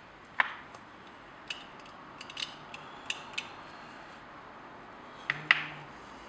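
Metal type sorts clicking as they are picked from the type case and set into a metal composing stick. Two sharper clicks, about half a second in and near the end, with a few lighter clicks in between.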